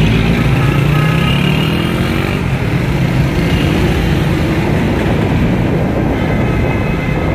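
Busy street traffic of motorcycles and cars, engines running steadily at close range, with one engine revving up about a second in.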